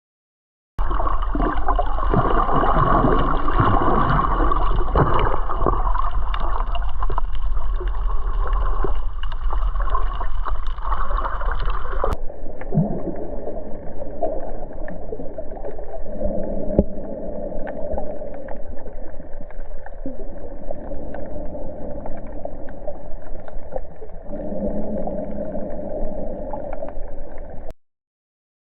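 Muffled underwater sound heard through a camera housing: a steady rushing with scattered crackles and clicks. About twelve seconds in the sound cuts abruptly to a duller, lower rush.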